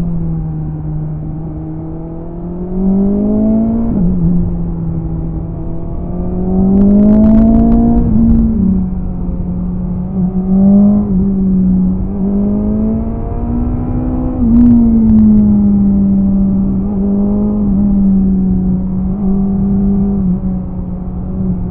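BMW S1000RR inline-four sportbike engine under way, heard from on board. The revs climb and then drop suddenly at gear changes, twice in the first half, then rise again and ease off gradually.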